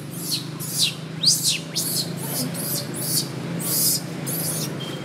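Baby long-tailed macaque screaming in distress while an adult monkey grabs it: about a dozen shrill squeals in quick succession, several sliding down in pitch. A faint steady low hum runs underneath.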